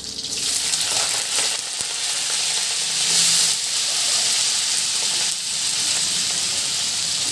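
Sliced vegetables sizzling as they are dropped into hot oil in a wok; the sizzle swells just after they go in, is loudest about three seconds in, then carries on steadily.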